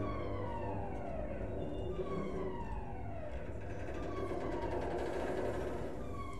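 Alarm siren: a falling electronic wail that repeats about every one and a half seconds, over a low steady hum.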